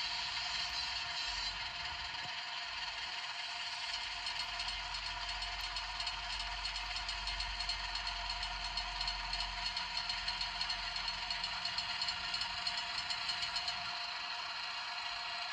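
HO scale model train running on the track: a steady motor whine with wheels rattling and clicking over the rails, the clicks becoming more regular for several seconds past the middle.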